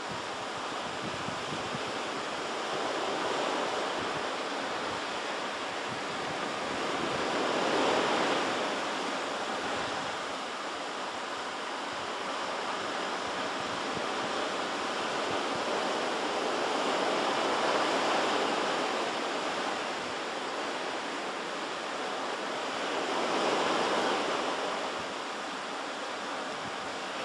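Pacific Ocean surf washing against the shore. The noise rises and falls in slow swells, with three larger waves about a third of the way in, around two thirds of the way in, and near the end.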